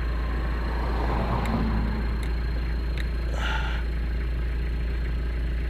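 A vehicle engine idling with a steady low rumble. Over it come a few faint clicks and a brief rustle as a small LED bulb is pulled from a dome-lamp holder and turned around.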